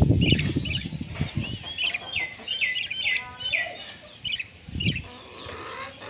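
Caged budgerigars chirping: a run of short, arched chirps repeated about two a second, fading out near the end. Low buffeting thumps sit under the first second and a half.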